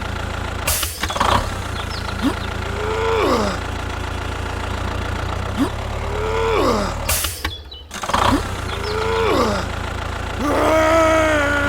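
A steady low engine drone, with a wail that rises and falls in pitch every few seconds and two short bursts of noise, the same pattern coming round again like a looped effect.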